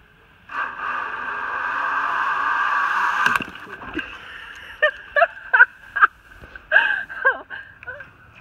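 Zip-line trolley running along a steel cable, a rising whir for about three seconds that cuts off sharply with a clack as the rider comes to a stop. It is followed by several short, high-pitched yelps and whimpers from the rider.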